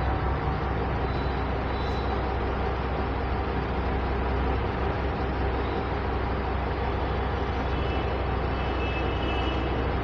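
Steady background noise: an even rumble and hiss with a faint constant hum running under it.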